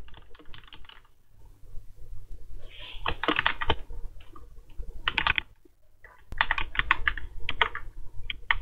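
Typing on a computer keyboard: rapid keystroke clicks in several short bursts with pauses between.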